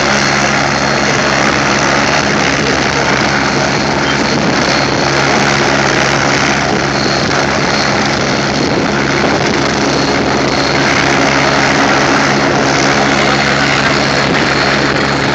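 AgustaWestland A109 twin-turboshaft helicopter running on the ground with its rotor turning, ready for lift-off. It is a steady, loud sound: a low rotor and engine hum under a thin, high turbine whine.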